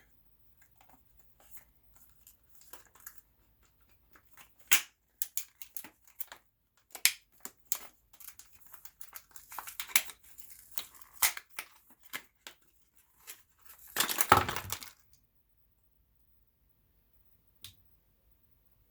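Card stock packaging being opened and handled: scattered clicks, scrapes and short tears, then a longer, louder stretch of tearing about fourteen seconds in, and a single click near the end.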